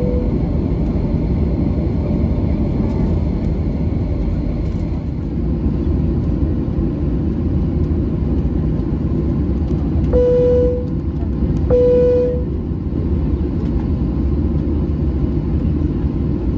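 Steady engine and rolling rumble heard inside the cabin of a Boeing 737-700 on the taxiway. About ten seconds in, two single-pitched cabin chimes sound about a second and a half apart.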